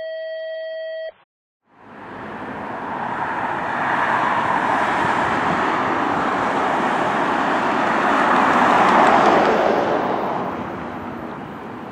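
A held electronic chime tone cuts off about a second in; then road traffic noise swells as cars pass on the road, loudest near the end before fading, with no siren heard.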